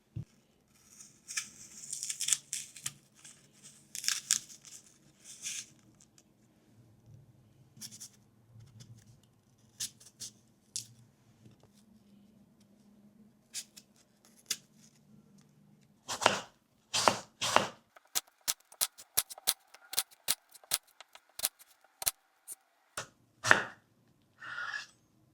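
Kitchen food-prep sounds: packaging rustling and tearing in the first few seconds, then a quick run of sharp knife chops on a cutting board, about three a second, in the second half.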